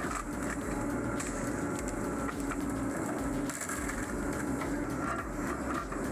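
Heavy machinery running steadily, an engine hum with scattered short knocks and clicks.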